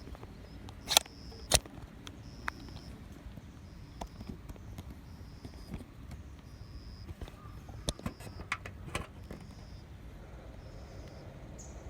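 Metal hand tools clinking and knocking against engine-bay parts while a Mazda Demio's drive belt is being removed: a few sharp clinks about a second in, and another cluster of clicks near the end. A faint high chirp repeats in short pulses underneath.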